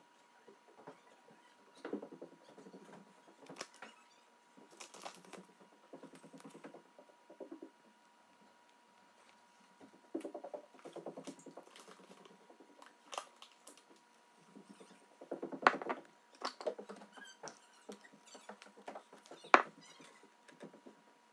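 Chinese mantis chewing a wolf spider: soft, irregular crunching and clicking from its jaws, with two sharper clicks in the last third.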